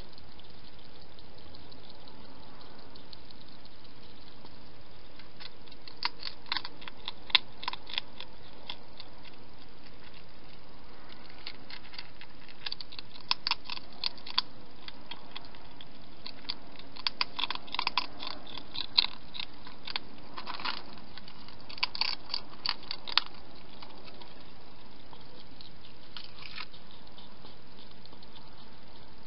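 A hedgehog crunching food in a bowl: bursts of sharp, crisp crunches that come in clusters every few seconds, over a steady hiss.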